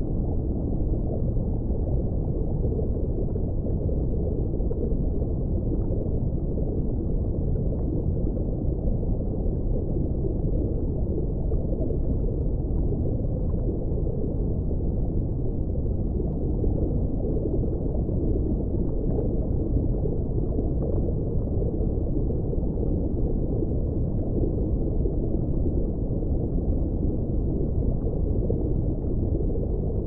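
Underwater ambience: a steady, muffled, deep rumbling wash of water with no high sounds in it, and faint small ticks now and then.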